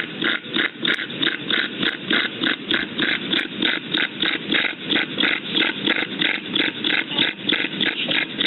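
English bulldog panting rapidly with noisy, obstructed breathing, about four to five breaths a second. It is the sound of a brachycephalic dog's obstructed upper airway: a dog having trouble getting air in.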